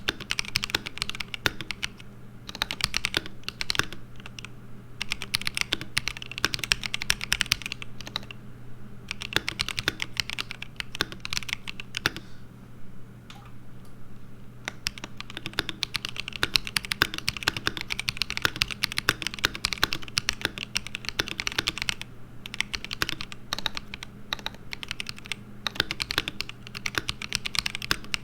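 Typing on an ASUS ROG Azoth mechanical keyboard with pre-lubed ROG NX Linear Red switches: fast runs of keystrokes with brief pauses between bursts.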